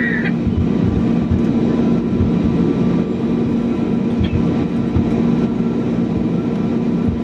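Steady, loud engine drone: a constant low hum over a rumble that neither rises nor falls, with a brief high chirp right at the start.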